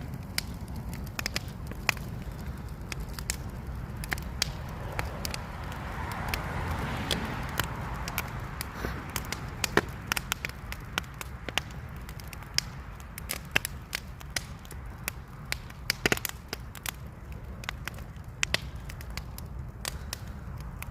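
Bonfire burning, the wood crackling with many irregular sharp pops over a steady low rumble. A rushing hiss swells for a few seconds in the middle.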